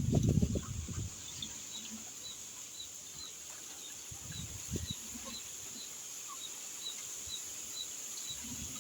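A bird chirping over and over, about two short high chirps a second, over a steady high insect buzz. Low rustling and knocks in the first second are the loudest sound.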